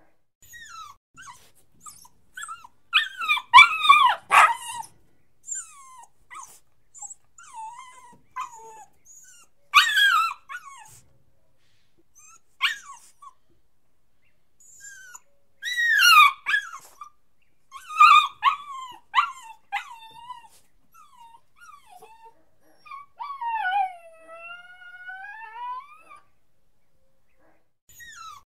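A puppy whining and crying: a string of high-pitched whimpers and yelps with short quiet gaps between them, with louder bursts of cries several times. Near the end comes one long drawn-out whine whose pitch dips and then rises.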